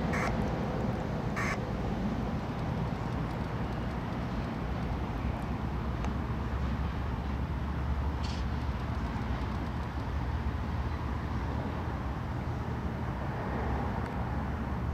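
Diesel-electric freight locomotives idling: a steady, deep engine rumble with no change in pace.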